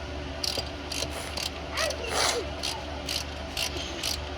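Hand ratchet wrench run down a header bolt in short repeated strokes, about two a second.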